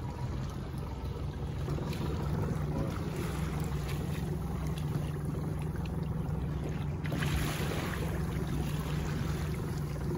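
Boat motor running with a steady low hum at slow trolling speed, with water washing along the hull.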